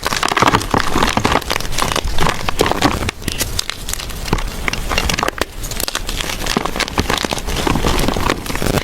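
Blocks of gym chalk being crushed and crumbled by hand, a dense, irregular crackling and crunching.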